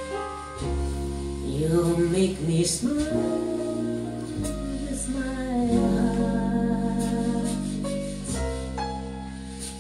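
Budget hi-fi stereo (Philips CDC925 CD player, Audio Experience preamp, Avid 100 speakers) playing a song with a singer over sustained bass and instruments, heard in the room through a cell phone's microphone.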